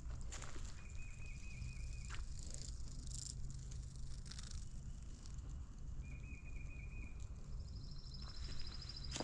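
Faint short trills, a bird or insect, repeated twice at one pitch and then once higher near the end, over a few scattered footfalls on the trail.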